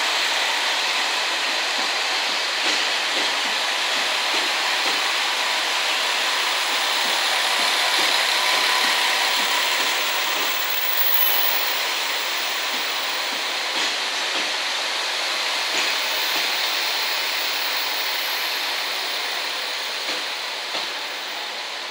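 JNR KiHa 40-series diesel railcars (KiHa 40 and KiHa 47) rolling slowly past on a shunting move, a steady rumble of wheels and engines with occasional clicks as wheels cross rail joints. The sound eases off slightly toward the end as the last car goes by.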